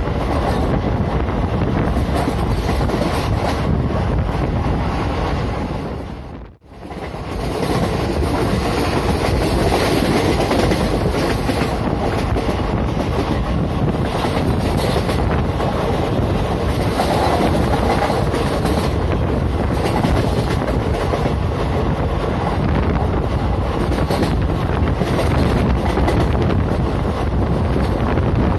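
Running noise of an Indian Railways express train heard from an open coach doorway at speed: a steady rumble and clatter of the wheels on the rails, with rushing air. About six and a half seconds in, the sound drops out for a moment and comes straight back.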